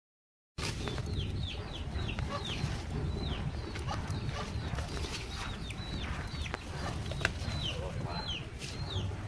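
Birds chirping over and over, each chirp a short falling note, over a steady low rumble, with a few sharp clicks.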